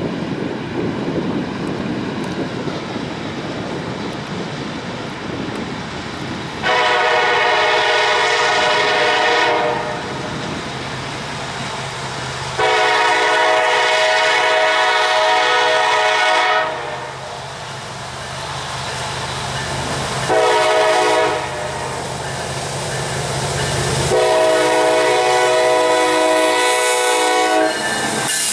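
Norfolk Southern diesel locomotive approaching with its engine running, sounding a chord horn in the grade-crossing pattern: long, long, short, long. The rumble grows louder as the locomotive draws close and passes near the end.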